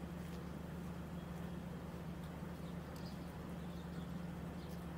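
Steady low hum of a car ferry's engines and machinery running while it lies moored, with a few faint ticks and clicks over it.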